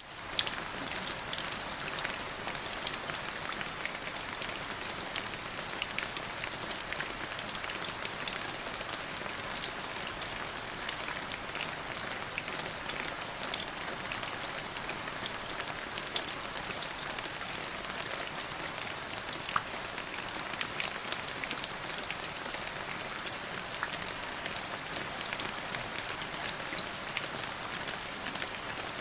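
Steady rain falling, an even hiss of rain with many distinct drop hits scattered through it.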